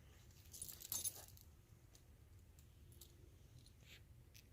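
Faint metallic clicking and jingling about a second in, then near silence with a few scattered ticks.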